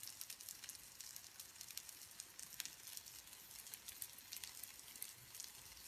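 Hot oil sizzling faintly under raw filled dough pies frying in an electric griddle pan, with a steady run of fine crackles.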